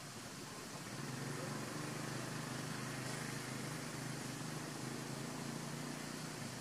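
A motor engine hums steadily at a low pitch, coming in about a second in over a constant hiss.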